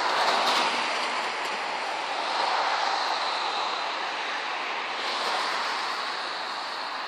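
Steady hiss of passing street traffic, swelling and easing slightly a few times.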